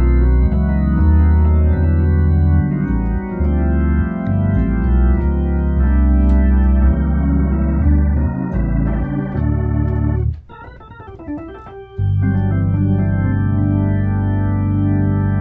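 Hammond A100 organ played through a Leslie Model 45 speaker, sustained chords in the key of G over pedal bass notes. About ten seconds in it drops to a brief quieter passage, then settles on one long held chord.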